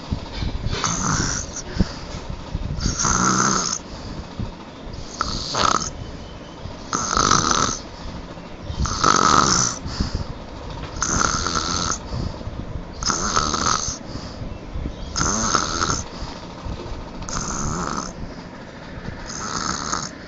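A person snoring loudly and regularly in deep sleep, one rasping snore about every two seconds.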